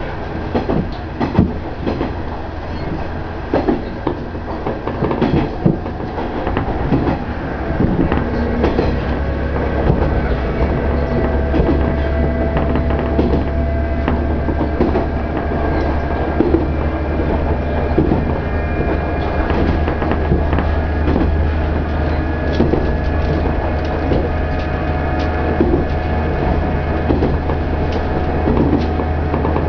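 KiHa 110 series diesel railcar under way, heard from inside. The engine's low drone grows louder about eight seconds in, over irregular clicking of the wheels on the rail joints and a steady whine.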